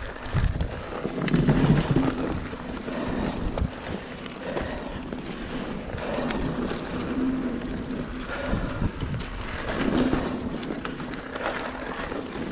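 Mountain bike rolling down a dirt singletrack: steady tyre noise over the dirt, with scattered knocks and rattles from the bike over bumps, and wind buffeting the microphone.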